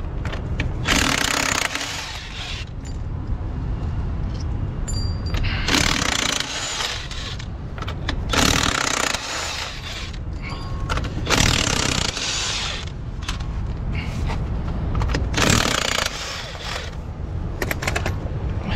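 Hand tools working the nuts and collars off a truck's rear axle hub to draw out the half shaft: about six short bursts of mechanical noise, each around a second long, over a steady low rumble.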